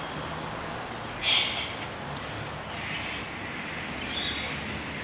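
Steady room noise with a faint low hum, broken about a second in by one short, breathy rush of noise, and a smaller one near the end.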